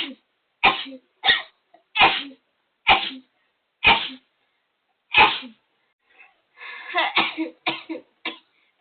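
A person's rapid sneezing fit: short, sharp sneezes about once a second, then a rougher, denser run of sneezing around seven seconds in and two more quick sneezes near the end.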